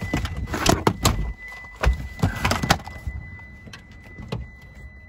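Power third-row seat of a 2011 Lexus GX 460 raising on its electric motor: a thin steady motor whine, with a run of clunks and knocks through the first three seconds.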